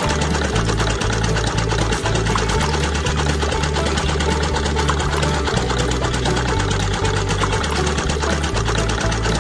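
A small motor-driven machine running steadily with a rapid, even mechanical clatter.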